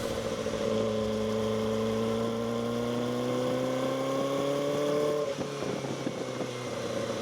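Kawasaki Ninja ZX-4RR's inline-four engine on its stock exhaust, pulling under way with its note rising slowly for about five seconds. Then the note breaks off and goes ragged and quieter until near the end.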